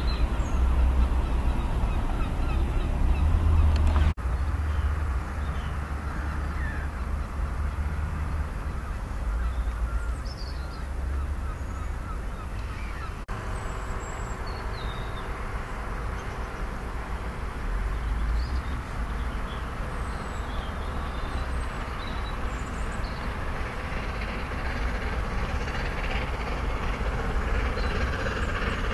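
Outdoor ambience with a steady low rumble and scattered short bird calls, broken off abruptly twice. Over the last few seconds the working exhaust of an approaching LNER A4 Pacific steam locomotive grows louder.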